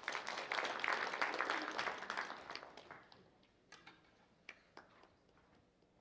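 Audience applauding for about three seconds, fading out, followed by a few scattered single knocks.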